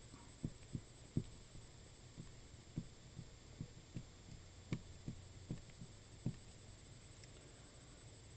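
Soft, irregular low thumps, two or three a second, from a computer mouse being moved and knocked on a desk while letters are drawn with it, over a steady low electrical hum. The thumps stop about six seconds in.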